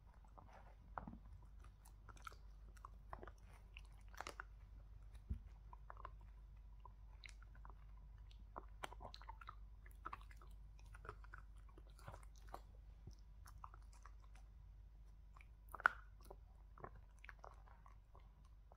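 A dog chewing and gnawing a treat: faint, irregular crunches and clicks of its teeth, with one louder crunch about three-quarters of the way through.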